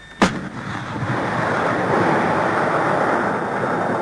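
A single sharp bang about a quarter of a second in, followed by a steady rushing noise.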